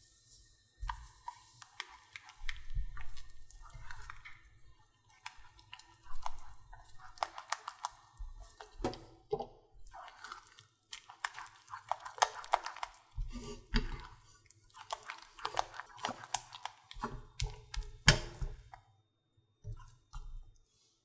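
Silicone spatula stirring and pressing choux paste, flour being cooked into hot butter and water, in a saucepan, with irregular wet scrapes and clicks against the pan and now and then a low thump. The mix thickens from a lumpy mass into a smooth dough as the flour gelatinises.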